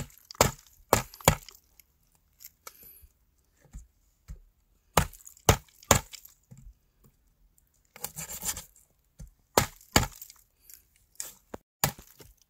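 Knife chopping on a wooden board with sharp, separate strikes. They come in short irregular groups: four in the first second and a half, three a few seconds later, then a quick flurry and a few more strikes.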